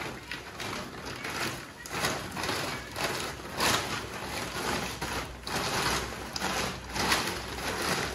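Woven plastic rice sack being handled close by, rustling and crinkling in irregular bursts.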